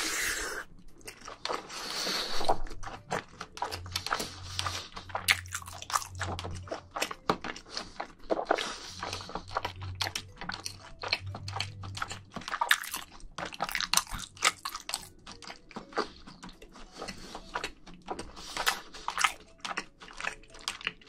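Close-miked chewing of a mouthful of jajangmyeon noodles in black bean sauce: wet, irregular clicking mouth sounds with short pauses.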